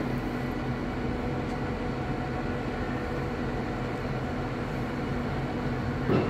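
A large engine running steadily with a constant low hum. There is a brief thump near the end.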